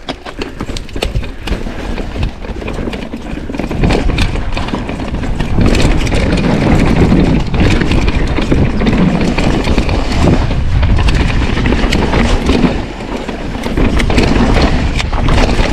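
Loud, steady rushing noise with a deep rumble and scattered clicks and knocks, building about four seconds in.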